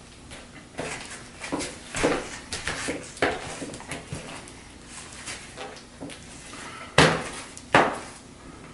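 A bicycle tyre being worked onto a wheel rim by hand: rubber rubbing and flexing against the rim with irregular clicks and knocks, then two sharp snaps near the end.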